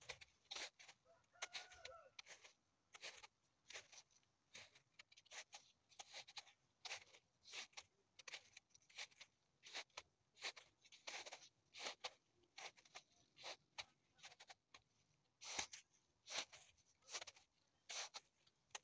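Shoes crunching on a thin layer of fresh snow over grass and pine needles, in faint, regular footsteps at about two a second.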